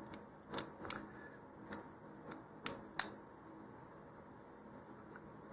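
A few sharp, light clicks of a steel Allen key against a small screw set in the wooden ring's metal threads as the screw is worked, about six in the first three seconds.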